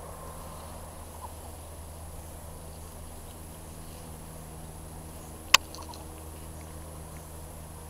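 Steady low background noise with a faint high hiss, broken by one sharp click about five and a half seconds in, followed by a few faint ticks.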